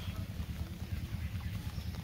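Light splashing and dripping of water as a cast net is gathered up by hand in a pond, with small scattered taps, over a steady low rumble of wind on the microphone.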